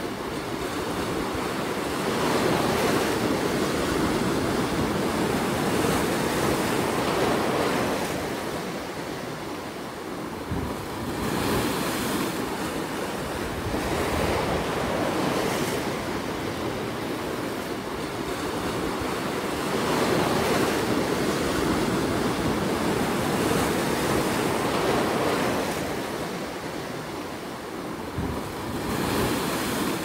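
Sea surf breaking and washing over rocks along the shore: a continuous rush of water that swells and eases every few seconds as the waves come in.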